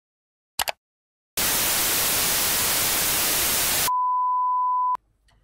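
Television static hiss for about two and a half seconds, then a steady test-tone beep of the kind played with colour bars, held for about a second and cut off suddenly. A brief click comes about half a second in.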